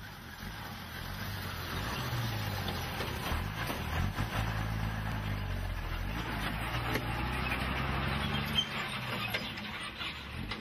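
Motor vehicle engine running at low speed, a steady low hum that shifts slightly in pitch a few times.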